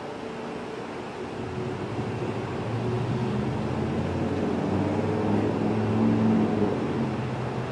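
Low engine hum of a motor vehicle, growing louder from about three seconds in and easing off slightly near the end.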